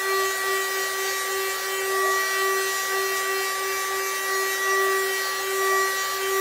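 A small corded mini hot-air gun running: a steady motor whine over the rush of blown air, as it is played over wet epoxy resin to pop the surface bubbles.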